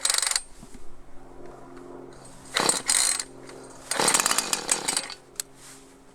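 Husqvarna 445 chainsaw's two-stroke engine sounding in three short bursts about two seconds apart, the last and longest about a second. A faint steady low hum runs between the bursts.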